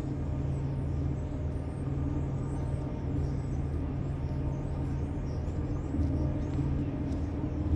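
Steady low drone with a few held tones from the laker H. Lee White's two EMD diesel engines as she gets under way across the harbor.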